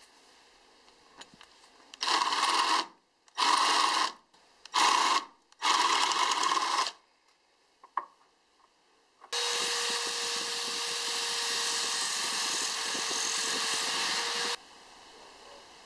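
Electric drill boring into the end grain of a wooden block in four short bursts. After a pause, a drill motor runs steadily for about five seconds with a constant hum, turning the wooden handle blank against sandpaper.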